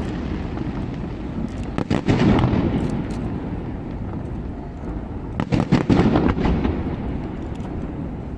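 Fireworks going off: two clusters of rapid bangs, about two seconds in and again around five and a half to six and a half seconds in, each followed by a long rumbling echo.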